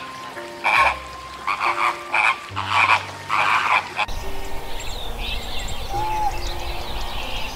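Flamingos calling: a run of about six short, harsh, nasal honks in the first four seconds. After that comes a steady outdoor hiss with faint high chirps.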